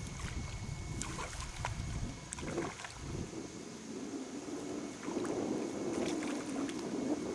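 Water splashing and sloshing at the surface as a hooked grass carp is played in toward a landing net, louder from about five seconds in, with wind rumbling on the microphone.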